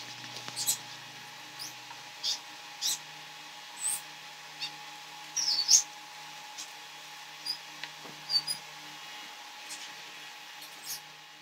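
Potato fries deep-frying in hot oil in a pan: a steady sizzle broken by scattered sharp, high-pitched pops and crackles about once a second, the loudest a little past the middle.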